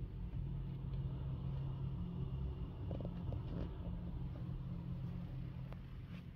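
Low, steady rumble, with a few faint ticks and a brief rustle about halfway through.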